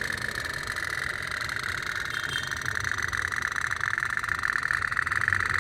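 Tin pop-pop steam boat engine running: a steady, very rapid putting buzz from the boiler diaphragm.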